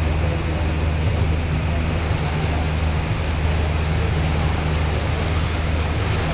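A river boat under way: its engine gives a steady low hum beneath an even rush of water and air.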